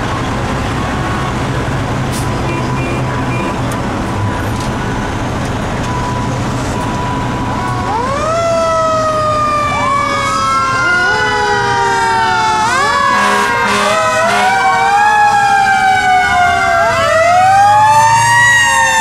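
Fire engines' engines rumbling, then from about eight seconds in several fire engine sirens start up together, overlapping tones that rise quickly and fall slowly, growing louder toward the end.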